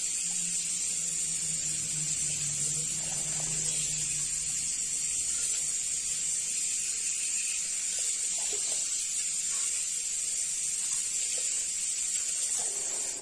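Steady scrubbing hiss of a scouring pad rubbed hard against the inside of an aluminium pot, polishing off black stains with a homemade aluminium cleaner. It runs without a break and cuts off abruptly at the end.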